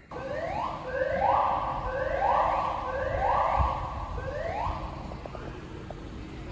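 Building fire alarm sounding its evacuation whoop tone: a rising sweep repeated about once a second, five times, then fading away.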